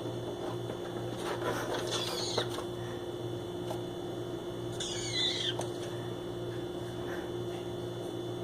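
Pineapple green-cheeked conure making its weird exploring noises: two descending calls, the first about a second and a half in and the second about five seconds in, with a few faint clicks. A steady low hum runs underneath.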